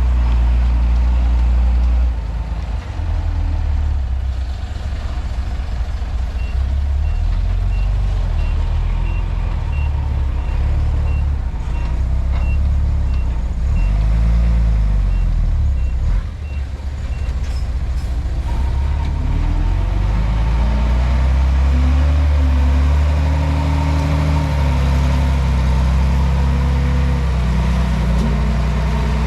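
Komatsu D31P bulldozer's diesel engine running loudly under shifting load, its pitch rising and falling as it works. About six seconds in, a reversing alarm starts beeping about twice a second and stops some ten seconds later, the sign of the machine backing up.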